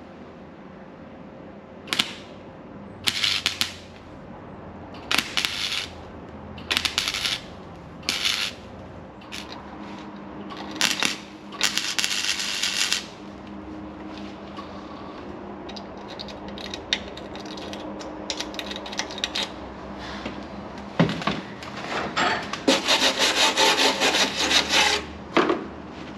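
Electric welder laying short stitch welds along a patch in a 2006 Toyota Hilux's thin, rusted outer sill steel: about a dozen brief bursts of arc crackle with pauses between, then a longer run of crackling bursts near the end.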